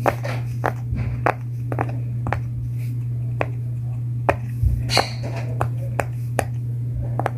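Sharp taps or clicks at uneven intervals, roughly one or two a second, over a steady low hum.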